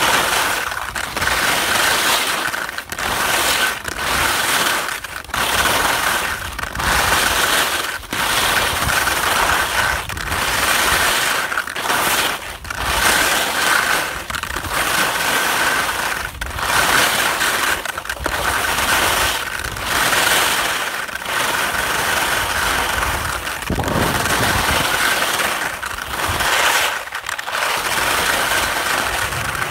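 Skis scraping over crusty, sun-cupped spring snow in a steady rhythm, a stroke about every second and a half.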